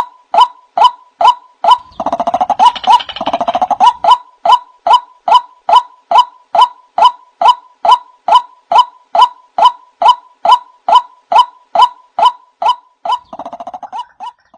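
White-breasted waterhen calling: a loud, evenly repeated 'wak' note about twice a second. A rapid bubbling run of notes joins in about two seconds in and again near the end.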